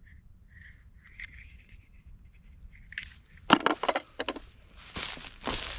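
Footsteps crunching through dry fallen leaf litter: a few sharp crunches about three and a half seconds in, then denser rustling and crackling near the end.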